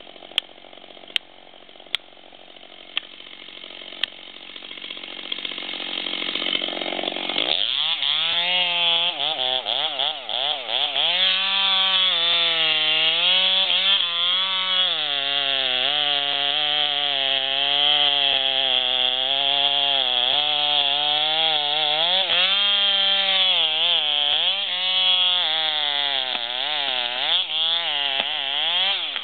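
Chainsaw felling timber: after a rising hiss with a few clicks, the saw comes in about seven seconds in and runs at high revs. Its pitch repeatedly sags and recovers as the chain bites into the cut.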